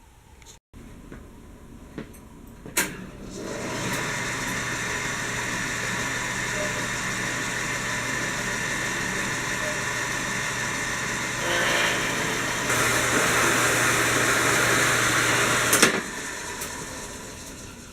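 A workshop power tool clicks on, runs steadily for about twelve seconds, gets louder about twelve seconds in as it takes up work, then shuts off.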